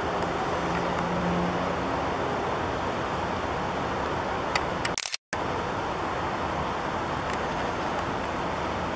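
Steady outdoor background noise with a faint low hum near the start. After a couple of faint clicks, the sound drops out completely for a moment about five seconds in, then resumes.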